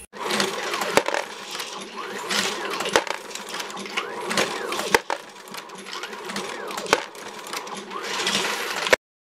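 Dillon 1050 progressive reloading press driven by an AmmoBot, cycling, with a sharp clack about every two seconds and a steady mechanical clatter between strokes. It cuts off suddenly near the end.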